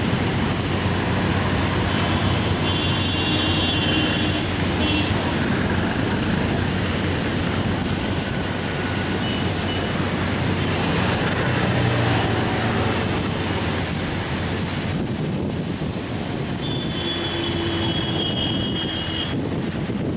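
Steady street traffic noise, with a long vehicle horn honk about two seconds in and another near the end.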